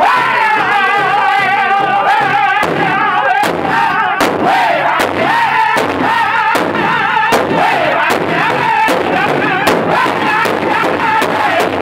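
Powwow drum group singing a high-pitched intertribal song in chorus over a large hide drum struck in a steady beat with drumsticks; the drumbeats get louder about a third of the way in.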